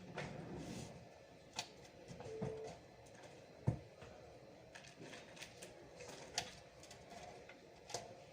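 Scattered light clicks and knocks of a desktop computer's parts being handled. The loudest is a sharp knock about three and a half seconds in, and a brief faint tone sounds about two and a half seconds in.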